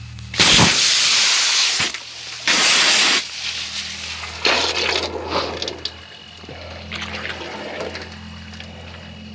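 Water gushing and splashing in three loud rushes over the first five seconds, then smaller spills, over a steady low hum.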